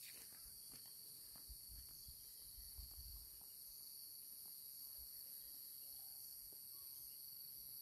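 Faint, steady high-pitched drone of an insect chorus, with a few soft low thumps about two to three seconds in.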